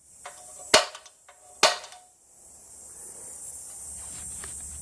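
Center punch being struck to mark the centre of a hole in steel: two sharp metallic strikes just under a second apart, with a few small ticks around them.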